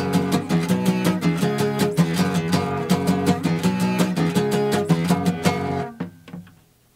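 Instrumental close of a lo-fi punk song: guitar strummed in a steady rhythm, stopping about six seconds in, with a few last notes dying away.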